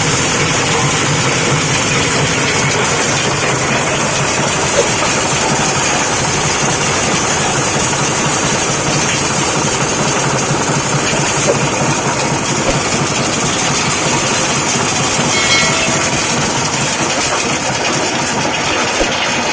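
8 HP diesel engine running a manure grinding machine, a loud steady mechanical noise with a few small clicks.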